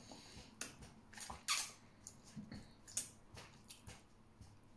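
Mouth sounds of eating with the hands: a few short, wet lip smacks and sucks as food is taken off the fingers, then chewing.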